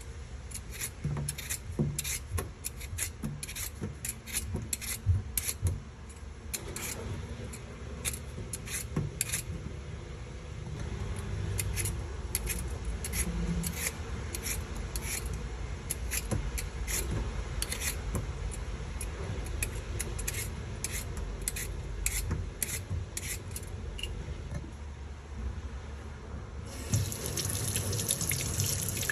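Potatoes being peeled by hand: short, irregular scraping strokes of a peeler, one or two a second. Near the end a tap starts running steadily into a stainless steel sink.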